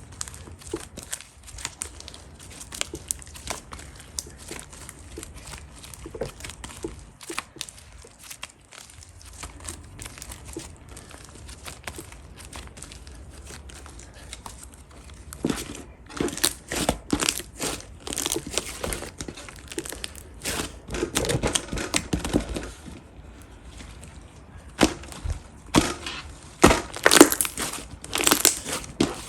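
Hands squishing and pressing slime, making crackling clicks. The crackles are soft and sparse at first, then grow louder and denser about halfway through.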